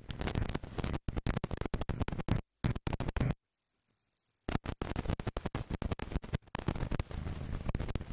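Wind buffeting the microphone on a moving Honda Varadero XL1000 motorcycle, a choppy crackling rush over the low note of its V-twin engine. The sound breaks up in short gaps and cuts out almost completely for about a second some three and a half seconds in.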